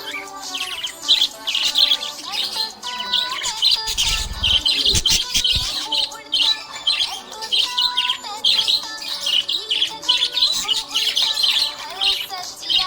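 Budgerigars chirping in a rapid, continuous stream of short, high chirps.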